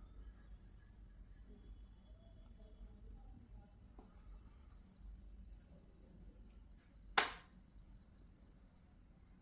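Soft handling and rustling while a Samsung Galaxy Tab S10+ is unboxed, with one sharp click about seven seconds in that rings out briefly.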